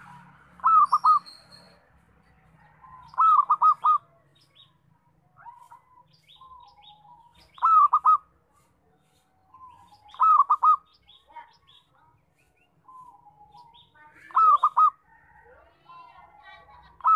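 Zebra dove (local perkutut) calling: loud phrases of three or four quick rolling coo notes, repeated about every three seconds, with softer cooing notes in between. Faint high chirps of small birds sound in the background.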